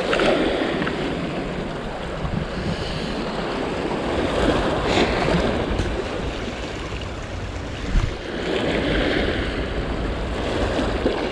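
Sea water surging and washing against the shore, swelling every few seconds, with wind rumbling on the microphone.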